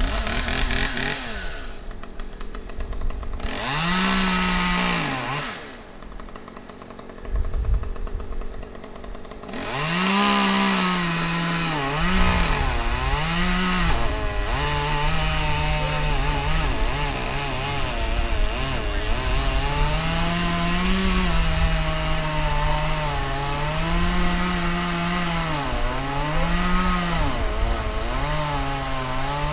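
Chainsaw revving in short blips, then running hard from about ten seconds in, its engine pitch rising and falling as it cuts dead oak.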